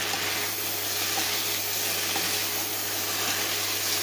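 Vegetables (sliced cabbage, mushrooms, green beans and carrot) sizzling steadily as they are stir-fried in a hot nonstick pan and turned with a wooden spatula.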